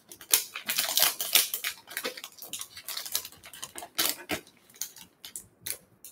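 Plastic trading-card pack wrapper being torn open and crinkled by hand: a quick run of crackles and rips, dense at first and thinning to a few separate cracks toward the end.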